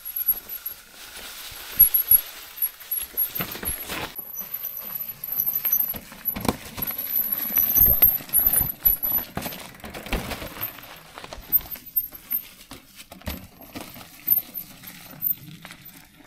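Irregular clicks, knocks and rattling from a mountain bike jolting over a rocky downhill trail.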